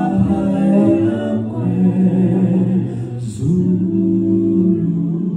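Voices singing a cappella in slow, long held notes, with a change of note about three seconds in.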